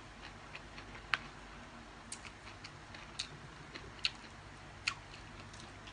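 Eating noises from someone eating a rice-noodle salad by hand: a handful of short, sharp clicks, roughly one a second, the loudest about a second in, over a faint low hum.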